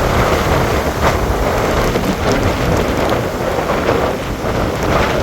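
Heavy hurricane rain pouring down in strong wind: a loud, steady hiss with a choppy low rumble beneath.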